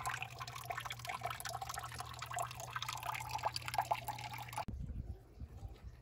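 Water trickling and splashing into a converted-refrigerator fish tank, as many small drips and splashes over a steady low hum. Both cut off suddenly near the end, leaving only a faint low rumble.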